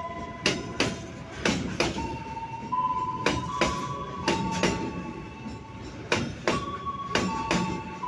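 Container freight train wagons rolling past, with the wheels clacking over rail joints in pairs, a pair every second or two. Under the clacks is a rumble and steady high-pitched metallic squeals that hold and change pitch, from the wheels and brakes as the train runs under a stop signal.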